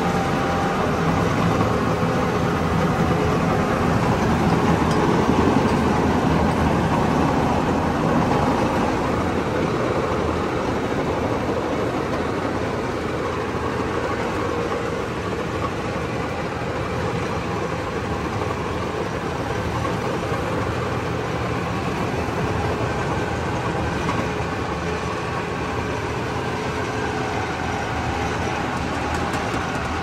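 Somkid Karnchang rice combine harvester's engine running steadily. It is a little louder about four to eight seconds in, then settles.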